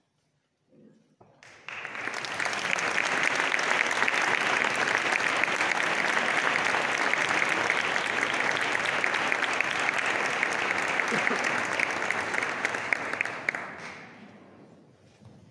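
Audience applauding. The clapping starts suddenly about a second and a half in, holds steady, and dies away near the end.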